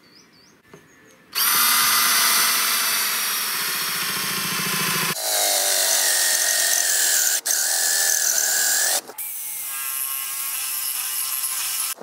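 Power drill with a flat spade bit boring a large hole into a log, the motor whining steadily as the bit chews the wood. It starts about a second and a half in, changes pitch about halfway through, and stops briefly twice in the second half.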